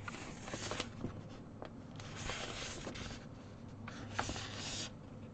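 Paper rustling and rubbing as a printed cross stitch chart is handled and moved, with a couple of light taps.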